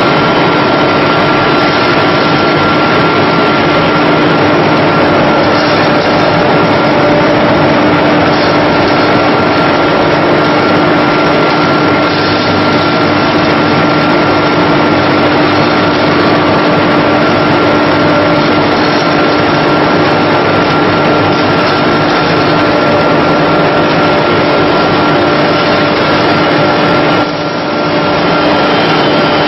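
Vertical sawdust pellet mill running: a loud, steady mechanical drone with a constant hum, briefly dropping in level near the end.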